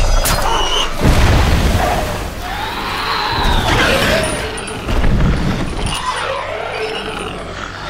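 Film sound effects of a giant ape fighting a huge reptilian monster: heavy booming impacts about a second in and again about five seconds in. Between them comes a screech that rises and falls.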